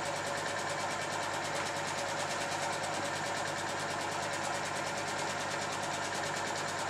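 Film projector running: a steady motor hum with a fast, even clatter of the film transport.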